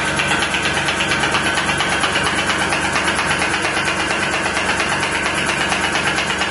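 ASMI (Advanced Spinal Mobilisation Instrument) handpiece running against the back: a steady, rapid mechanical buzz of fast repeated impulses with a steady high tone.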